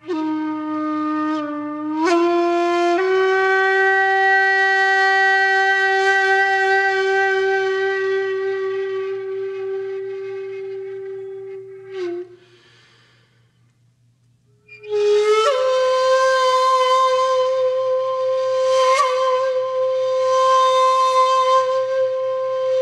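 Background music: a solo wind instrument playing long held notes. The first note slides up in two steps near the start, holds, and fades away. After a short pause, a higher note comes in and holds with breathy swells.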